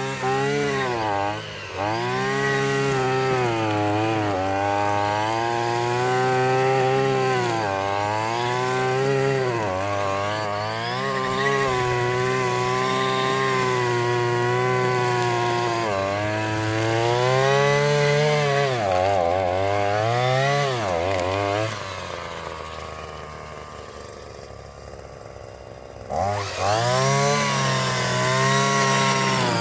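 Hyper Tough gas string trimmer's small engine revving up and down as it cuts. About 22 seconds in it drops back to idle for a few seconds, then revs up again.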